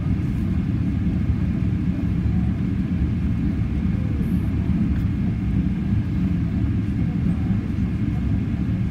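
Steady low rumble of a Boeing 777-300ER's cabin noise, heard from a rear seat during landing.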